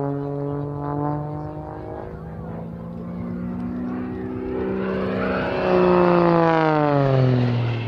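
Extra 330SC aerobatic plane's Lycoming six-cylinder engine and three-blade propeller droning through a smoke-trailing dive. It grows loud about five seconds in as the plane comes close, then drops in pitch as it passes by.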